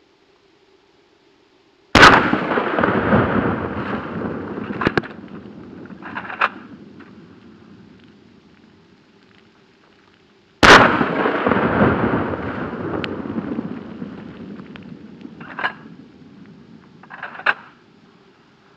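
Two blasts from a Remington 870 12-gauge pump shotgun firing 00 buckshot, about nine seconds apart. Each shot is followed by a long echo that rolls on for several seconds, with a couple of fainter sharp clacks.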